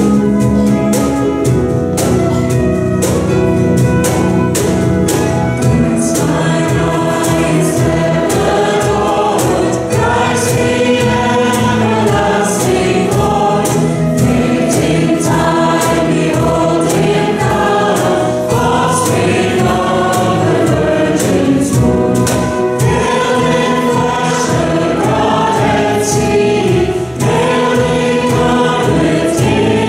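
A group of voices singing a hymn together, accompanied by a band with drums and cymbals keeping a steady beat.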